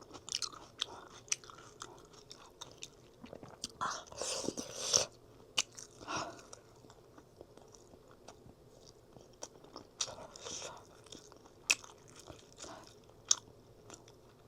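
A person chewing and biting food close to the microphone, with scattered sharp mouth clicks and occasional crunches.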